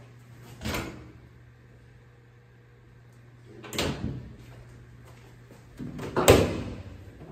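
Laundry appliance doors worked by hand: a knock near four seconds in as the lid of a Maytag Centennial top-loading washer is handled, then the loudest clunk just after six seconds as the Maytag dryer's door is pulled open. A smaller thump comes under a second in.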